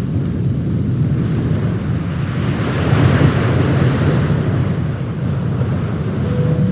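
Wind buffeting the microphone over sea waves, a steady rushing noise heaviest in the low end, swelling a little about three seconds in. Music comes in near the end.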